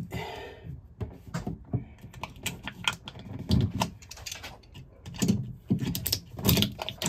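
Irregular clicks, taps and knocks of tongue-and-groove pliers being handled and gripped at a faucet hole in a plastic sink deck, with a few heavier knocks in the middle and near the end.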